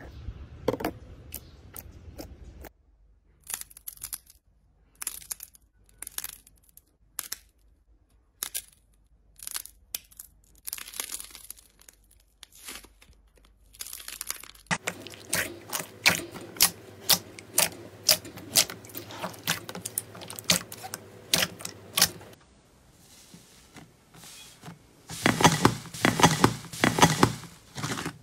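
Slime being squeezed, poked and pressed by hand, making crackling clicks and crunches. It comes as a string of short clips, with the densest crackling near the end.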